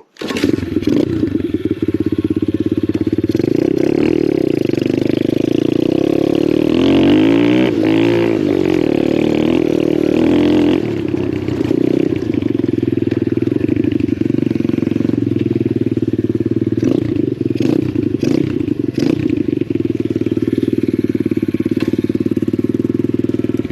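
Pit bike's Lifan 125 single-cylinder four-stroke engine running, its pitch swinging up and down between about seven and ten seconds in.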